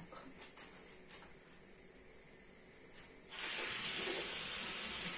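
Floured turkey pieces frying in butter in a non-stick pan over a raised gas flame: a loud sizzle that starts abruptly about three seconds in, after a few faint clicks.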